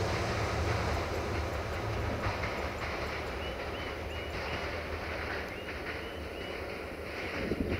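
VT624 diesel multiple unit running away down the line, its low engine and wheel rumble fading as it recedes. A few short high chirps come in the middle, and a brief clatter of wheels over rail joints near the end.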